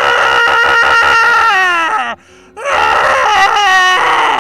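Young elephant seal calling with its mouth wide open: two long, loud cries, each held on a steady pitch and then falling away, with a short break about two seconds in.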